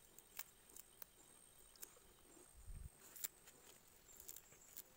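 Near silence with a few faint scattered clicks and rustles of hands tearing fresh coriander and handling chopped bamboo shoot and taro stems in a bowl, and a soft thump a little over halfway. A faint steady high tone runs behind.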